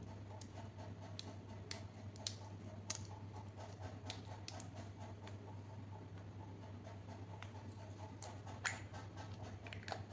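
Small plastic toy kitchen pieces being handled: light, irregular clicks and taps, the sharpest about two seconds in and near the end, over a steady low hum.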